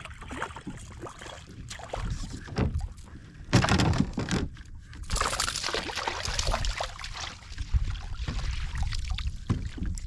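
Irregular splashing and knocking around a plastic sit-on kayak as a small hooked snook is fought alongside, with a louder burst about three and a half seconds in and another about five seconds in.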